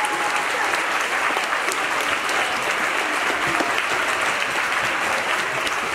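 An audience clapping in sustained applause, a dense, steady patter of many hands in a large room.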